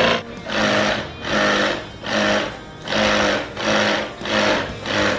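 Small motor whirring in six even bursts, a little under one a second, each about half a second long.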